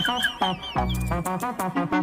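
Background music with a steady beat of bass notes and percussion, and a high wavering tone over roughly the first second and a half.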